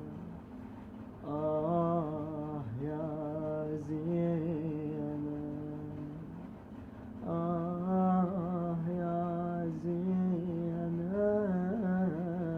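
A man's unaccompanied voice chanting a mournful Arabic lament in long, held, wavering melismatic notes, with no added effects. It comes in two long phrases with a short breath between them near the middle.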